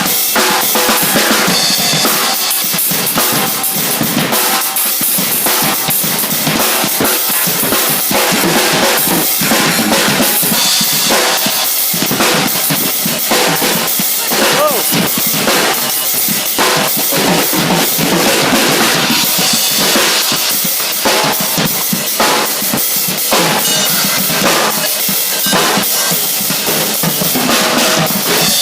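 Drum-led music: a drum kit with bass drum and snare playing continuously, thick with percussion strikes.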